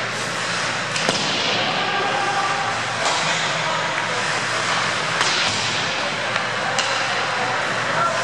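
Ice hockey play in a rink: a steady hiss of skates on the ice over the arena's hum, with four sharp cracks of sticks striking the puck spread a second or two apart, and voices in the background.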